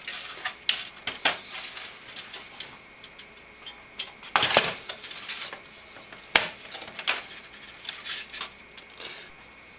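Clicks and clattering from the front bezel of a Cooler Master Storm Enforcer PC case as its inside clips are pressed and it is pulled off by hand. A series of sharp clicks, with the loudest clatter about four and a half seconds in.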